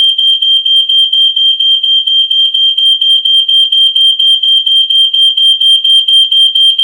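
Smoke alarm sounding: a loud, high electronic tone of one pitch, pulsing rapidly at about six times a second without a break.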